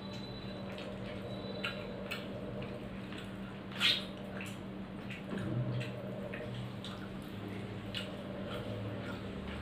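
Wet mouth sounds of someone eating rice and fish by hand: scattered chewing and lip-smacking clicks, with fingers working the food on a plate, and one sharper click about four seconds in. A steady low hum runs underneath.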